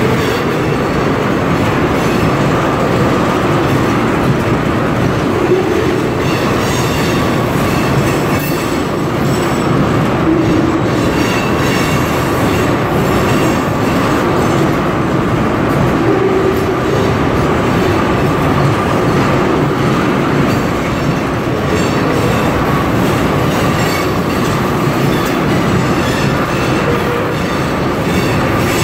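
Tank cars of a long freight train rolling past at close range: a steady rumble and clatter of steel wheels on the rails, with faint high wheel squeals now and then.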